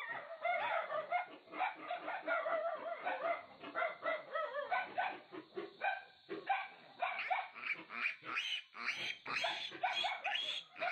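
A three-day-old piglet squealing over and over in short, quick calls while it is held in the hand, with brief pauses about four and six seconds in.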